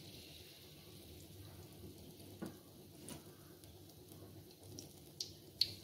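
Battered jackfruit pieces frying in hot oil in a wok: a faint, steady sizzle, with a few short sharp clicks over its second half.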